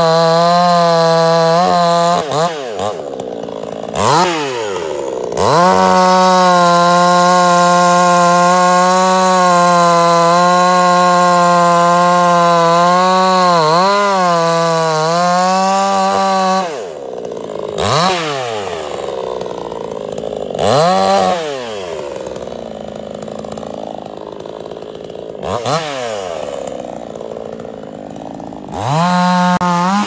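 Two-stroke chainsaw cutting through the base of a coconut palm trunk at full throttle, its steady engine note dipping in pitch as it bogs in the wood. About seventeen seconds in it drops back to idle and is revved in short blips four times.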